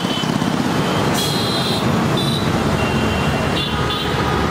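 Steady rumble of busy road traffic, mostly motorbikes and cars running past, with a few short high-pitched tones scattered through it.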